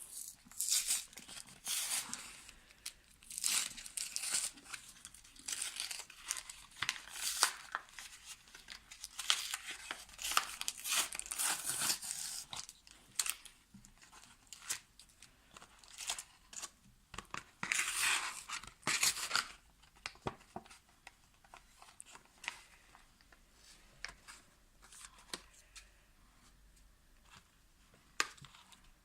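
Pokémon trading card triple blister pack being torn open by hand: cardboard and plastic packaging ripping and crinkling in irregular scratchy bursts, thinning out to occasional rustles after about 20 seconds.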